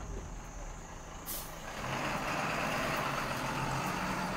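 A truck running, with a short high hiss about a second in and a louder rushing noise from about two seconds in.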